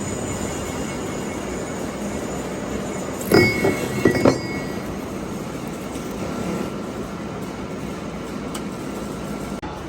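Steady rumble of workshop machinery, with metal clinking and ringing a few times between three and four and a half seconds in.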